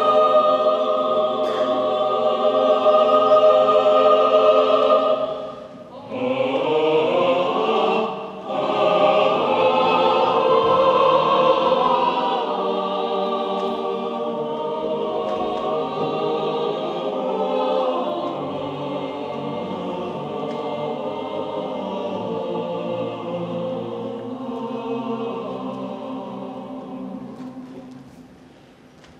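Choir singing slow, sustained chords, with two brief breaks about six and eight seconds in, dying away near the end.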